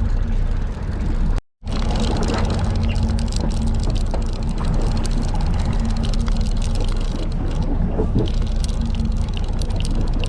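Fishing boat's engine humming steadily, with scattered small ticks over it; the sound drops out completely for a moment about a second and a half in.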